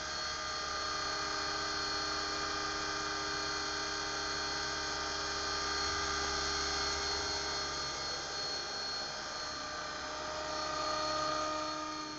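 Electric radio-controlled helicopter (a Mini Titan under a scale Agusta 109 body) hovering and flying: a steady high-pitched whine of motor and spinning rotors, with several even tones. It swells briefly and then fades near the end as it moves away.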